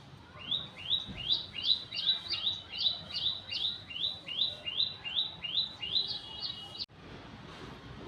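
A bird calling a rapid, even series of short rising chirps, about three a second, which cuts off suddenly near the end.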